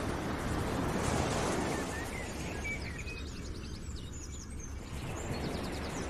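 Outdoor nature ambience: birds chirping and giving quick repeated trills over a steady rushing background noise.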